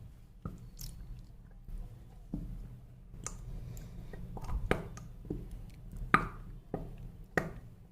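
Irregular small clicks and taps, about ten of them, with the loudest a little after six seconds in, from a plastic tube of glue being handled and squeezed out into a glass bowl.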